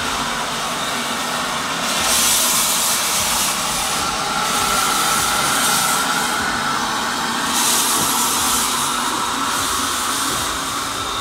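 SE&CR H class steam tank engine No. 263 hissing steam, the hiss swelling louder several times.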